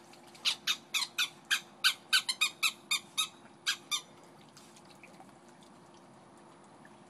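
A quick series of about a dozen short, high squeaky animal calls, three or four a second, that stops about four seconds in. A faint steady hum stays underneath.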